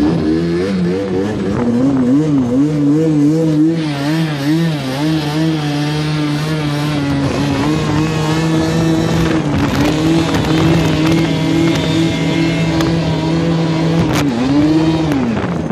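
Vehicle engine running hard, its pitch wavering up and down for the first few seconds, then holding mostly steady, with a last rise and drop near the end.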